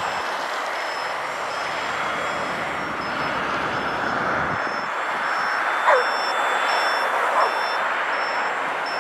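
A high-pitched electronic beep repeating about every two-thirds of a second over a steady rushing noise. Two short falling squeaks stand out about six and seven and a half seconds in.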